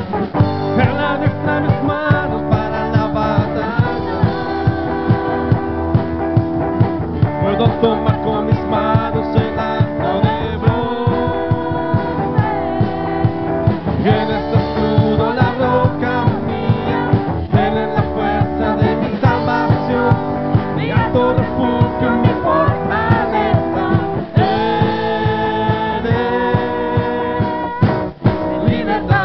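Upbeat Spanish-language praise song played live by a church worship band: women singing lead over keyboard, guitar and drums with a steady beat.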